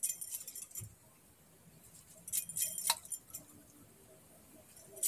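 Glass bangles jingling lightly on a woman's wrists as her hands scoop soaked rice out of a steel bowl onto a grinding stone. There are sharp clinks in the first second and again a little past halfway, with quiet gaps between.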